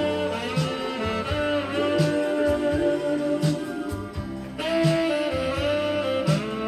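Karaoke backing track of an enka ballad playing an instrumental interlude between sung lines: a lead instrument holds long melody notes over a steady bass line.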